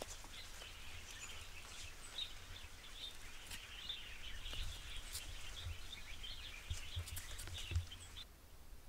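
Jungle ambience of many small birds chirping and chattering in a dense, irregular chorus, with a few dull footstep thuds on the trail. The chirping stops suddenly near the end.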